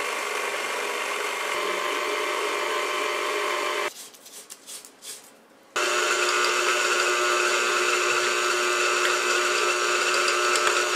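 Electric mixer running steadily with a motor whine as it mixes dry ingredients into a creamed butter-and-sugar cookie dough. It stops a little under four seconds in, and after about two seconds of a few faint knocks it starts up again.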